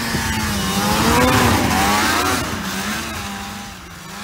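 Snowmobile engine going past close by at speed and pulling away, loudest a little over a second in, then dropping in pitch and fading as it moves off.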